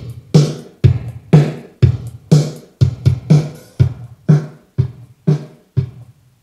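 Alesis drum machine beat played loud through a pair of Mackie Thump TH-12A active speakers with 12-inch woofers, as a test of the freshly repaired speakers. It is a steady pattern of about two strong hits a second that grows weaker and stops about six seconds in.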